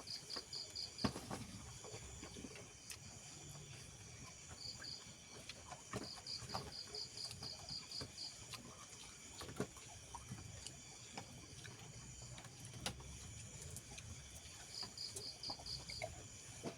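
Cricket chirping in trains of quick, even pulses, about seven a second, that come and go several times, with scattered faint clicks and taps.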